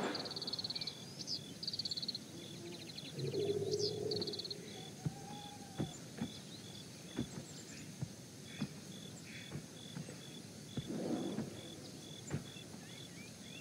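Outdoor nature ambience: birds chirping and a high chirp repeating evenly, about two to three times a second, with scattered short knocks. A louder low, muffled sound comes about three to four seconds in and again near the end.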